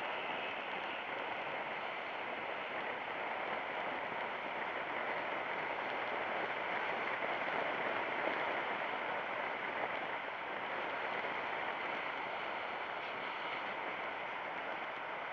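Steady rush of wind and road noise over a motorcycle-mounted camera's microphone while riding at speed.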